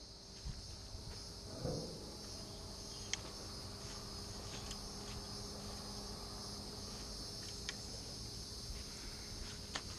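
Steady high-pitched insect chorus, with a soft knock about two seconds in and a few short clicks as fishing gear is handled.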